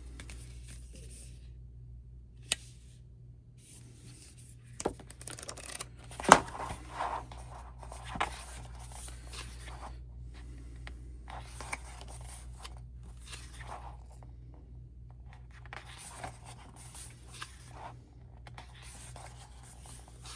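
Handling of album packaging and a photo book: paper and cardboard rustling and page turning, in short bursts with a few sharp taps, the loudest about six seconds in.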